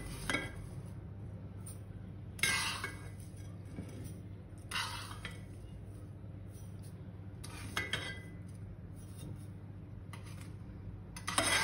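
Metal spoon scraping and clinking against ceramic bowls as shredded kadayıf pastry is spooned from one bowl into another. There are several short scrapes a few seconds apart over a steady low hum.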